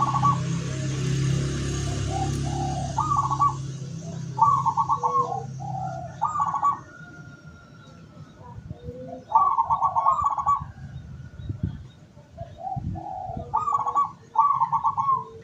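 Zebra doves (perkutut) cooing: short trilled coo phrases repeated every second or two, in clusters. A low steady hum runs under the first few seconds.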